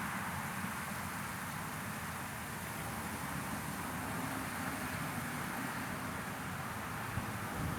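Steady, unchanging rushing noise played as a sleep sound, with no distinct events.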